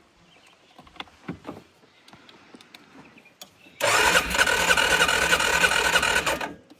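ATV engine cranked by its electric starter for about two and a half seconds, starting about four seconds in and stopping abruptly without catching. After carb cleaner, the owner takes it to be short of fuel: with a little gas it would run.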